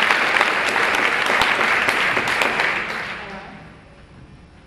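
Applause from a group of people, many hands clapping, dying away about three seconds in.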